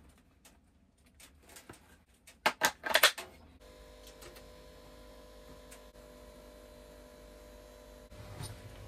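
A few sharp knocks and clatters, loudest about two and a half to three seconds in, then a sudden switch to a steady hum with faint steady tones.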